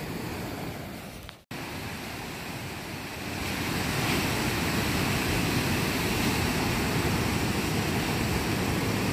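Heavy storm surf, stirred up by an approaching hurricane, breaking and washing up the shore, with wind on the microphone. The sound drops out for an instant about a second and a half in, and the surf is louder from about three seconds on.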